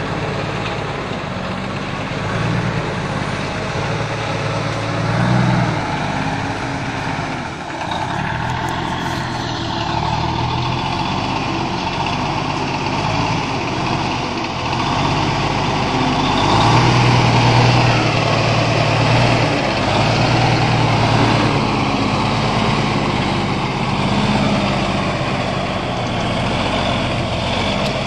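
Diesel engine of a semi truck hauling a loaded wood-chip trailer, running steadily as the truck crawls through deep mud. It grows louder about two-thirds of the way in as the truck comes close.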